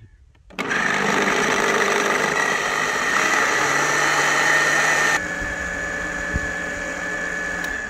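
Electric blender running at speed, grinding soaked poppy seeds into a paste with a steady motor whine. It starts about half a second in, gets quieter about five seconds in and stops near the end.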